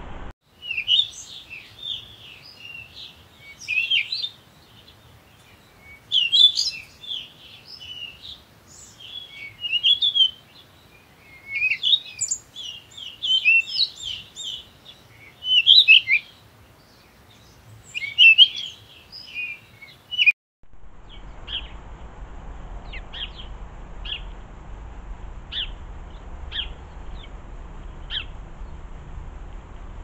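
Garden songbirds singing and chirping, many quick varied phrases packed together for about twenty seconds. Then the sound cuts to a steady low background rumble with only occasional short, high chirps.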